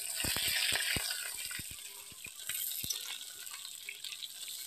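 Pointed gourd pieces sizzling in hot mustard oil in a metal kadai, with a metal spatula clicking and scraping against the pan as they are stirred. The sizzle is loudest in the first second and then settles.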